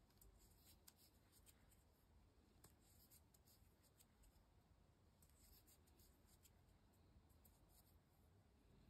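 Near silence: faint hiss with a few faint, short, scratchy ticks.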